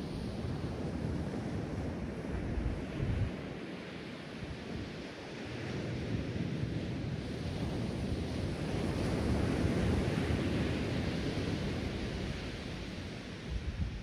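Ocean surf washing onto a sandy beach: a steady rushing wash that swells and eases, loudest about two-thirds of the way through. Brief low gusts of wind buffet the microphone about three seconds in and again at the end.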